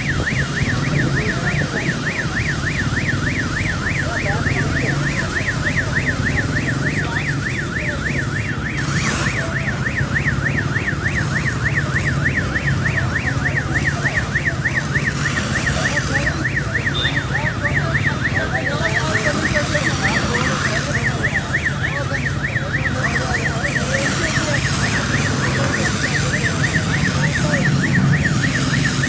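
A siren warbling rapidly and without a break, its pitch swinging up and down about three times a second, over a steady low hum. A rushing noise swells up several times.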